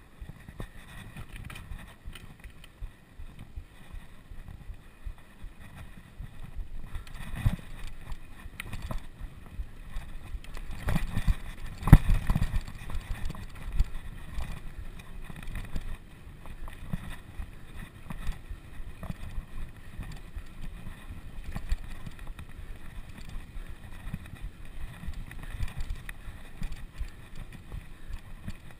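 Wind rumbling over the microphone of a camera on a moving racing bicycle, with uneven gusts and knocks that are strongest about halfway through.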